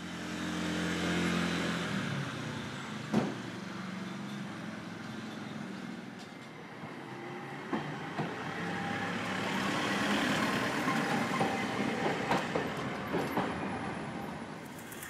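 Street traffic with a streetcar running on its rails: a steady engine hum near the start, then a continuous rumble broken by a few sharp clicks and knocks.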